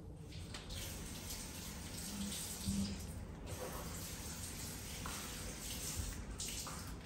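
Running water, a steady hiss that dips briefly a couple of times.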